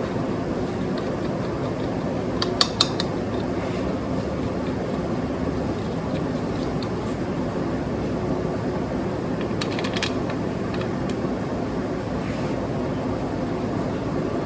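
Steady mechanical hum in the background, with a few sharp metal clicks of tools and parts being handled: a pair about two and a half seconds in and another near ten seconds.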